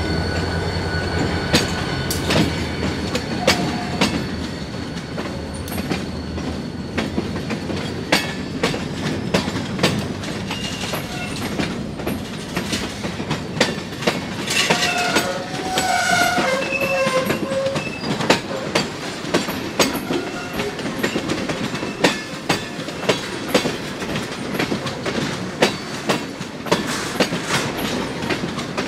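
Freight cars (covered hoppers and tank cars) rolling past close by, their wheels clicking over the rail joints in a steady rhythm. A diesel locomotive's engine hum fades away over the first few seconds, and brief high wheel squeals come about halfway through.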